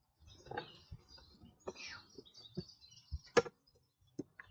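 Scattered clicks, knocks and rustling as the lawn mower's parts are handled, with one sharp click about three and a half seconds in. Birds chirp faintly in the background.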